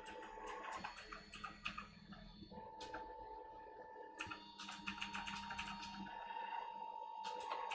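Desktop 3D printer's stepper motors running while printing a small cube: quick runs of ticking as the print head makes short moves, alternating with a steady whine.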